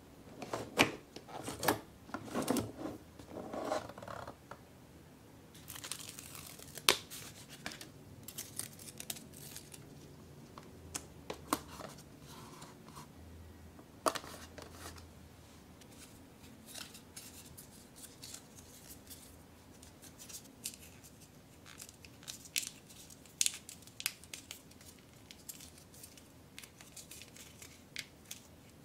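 Paper and cardboard craft pieces handled on a tabletop: rustling, crinkling and light tapping with scattered sharp clicks, and denser handling knocks in the first few seconds.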